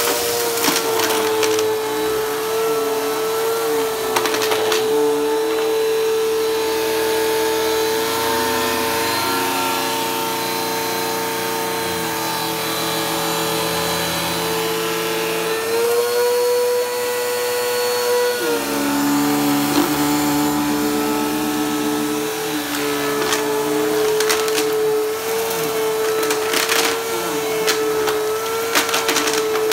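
Bagless upright vacuum cleaner running over a shag rug, its motor giving a steady whine that rises in pitch for about two seconds around the middle and then drops back. Near the start and again toward the end, rattling clicks of small hard debris being sucked up through the machine.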